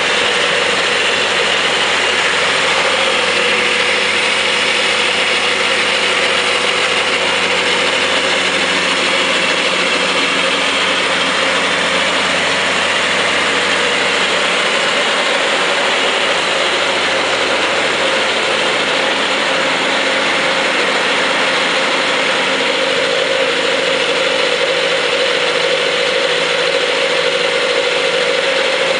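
Kubota B3030 compact tractor's three-cylinder diesel running steadily, with a whirring, gear-like mechanical sound and a steady hum.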